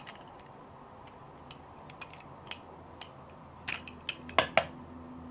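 Hard plastic Lego Duplo pieces clicking and clacking as the police figure is pulled off the toy motorcycle: a few faint clicks, then a quick run of sharper clacks near the end, the loudest two close together.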